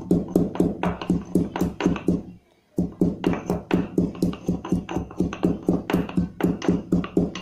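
Pestle pounding black pepper, cumin and ginger in a mortar: steady heavy strikes, about four or five a second, with a short break about two and a half seconds in.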